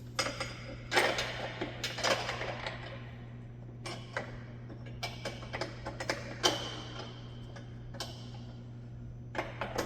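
Irregular metallic clicks, clinks and scrapes of bolts and a bumper mounting plate being handled and fitted, over a steady low hum.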